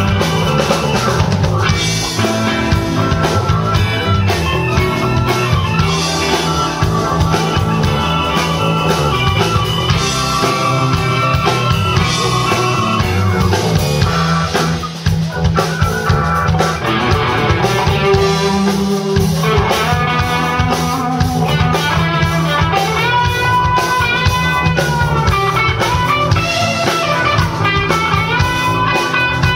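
Live band playing a rock number, with guitar and drum kit to the fore; the music stays loud and steady throughout.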